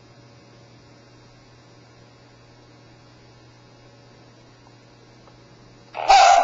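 Steady low electrical hum. Near the end, a loud, sudden bark-like call from the Genibo robot dog's speaker cuts in.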